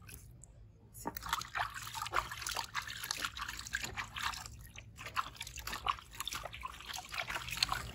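Bathwater splashing and dripping in a plastic tub as hands scoop it up and pour it back down. A run of small, irregular splashes and drips starts about a second in.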